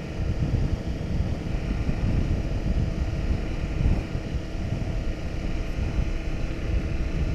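Motorcycle running steadily along a dirt road, its engine drone mixed with gusty wind buffeting on the microphone.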